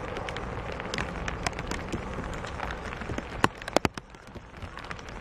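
Rain falling steadily, with single drops striking close by as irregular sharp taps; a few louder taps come a little past the middle.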